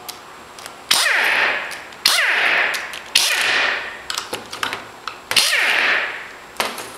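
Pneumatic impact wrench run in four short bursts, each about a second long and dying away as the tool spins down, driving out the long through bolts of a Denso 10S A/C compressor. Light clicks of the tool and bolts come between the bursts.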